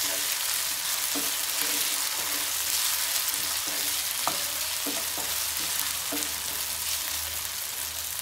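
Diced carrots and potatoes sizzling in hot oil and ghee in a kadai, with a steady frying hiss. A wooden spatula stirs them, scraping and knocking against the pan several times.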